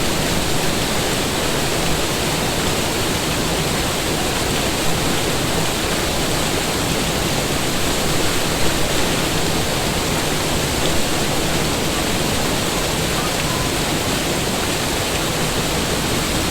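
Waterfall with a heavy flow of water, a steady rushing roar.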